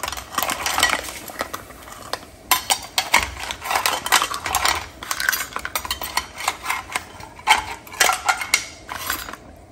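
A metal skimmer scraping and clinking against a bowl as shell-on razor clams are pushed off it into a pan of boiling water, making irregular clinks and knocks throughout.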